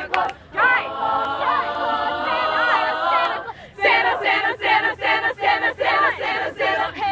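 Youth choir of mixed voices singing in harmony: a chord held for about three seconds with one voice sliding above it, then after a short break quick, rhythmic sung syllables.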